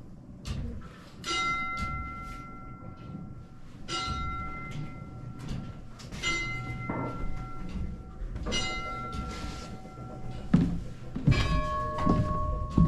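Large bells striking. One bell strikes four times, about two and a half seconds apart, each stroke ringing on. Near the end a lower-pitched bell takes over.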